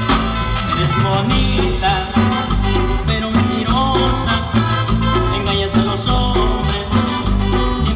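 Live band playing upbeat Latin dance music with a steady beat.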